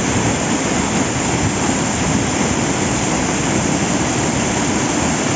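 A large, tall waterfall's falling water: a steady, unbroken rush.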